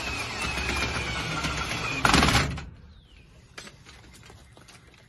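Cordless drill running steadily for about two seconds as it drives a screw to mount a storm-door closer bracket in the aluminium door frame, then a short louder burst. After that come only faint scattered clicks and taps.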